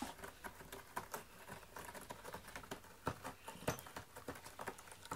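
A close, irregular flurry of light clicks and scratches, with a few sharper knocks about three seconds in.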